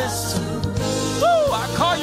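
Live gospel worship music: steady sustained keyboard and bass chords, with a singer's wordless vocal run sliding up and down about halfway through.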